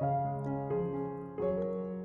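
Background piano music: slow notes struck about every 0.7 seconds, each ringing on and fading.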